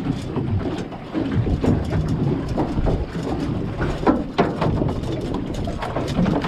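Wind rumbling on the microphone, with irregular knocks and clatters through it.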